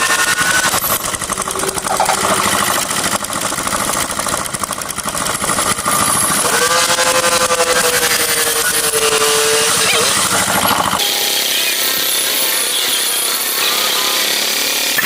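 Small high-speed electric power tool cutting into MDF, its motor pitch sagging and rising as the load changes. The sound changes abruptly about eleven seconds in, losing its low rumble.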